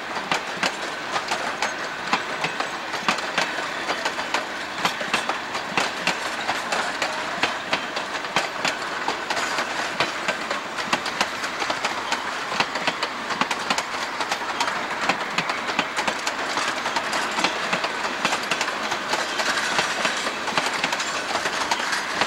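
Narrow-gauge passenger coaches rolling slowly past, their steel wheels making a dense, irregular run of sharp clicks and clanks over the rail joints.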